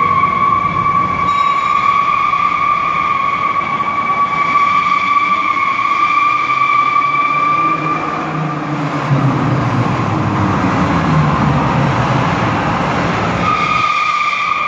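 Full-size pickup doing a burnout: its rear tires give a steady high-pitched squeal for the first eight seconds or so. The engine then revs hard under rough tire noise, and the squeal comes back near the end.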